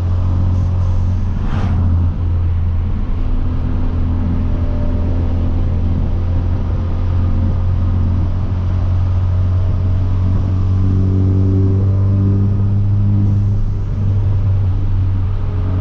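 Hyundai Veloster Turbo's turbocharged 1.6-litre four-cylinder with a catless downpipe, cruising with a steady low exhaust drone that grows fuller for a few seconds past the middle. A brief whoosh about a second and a half in.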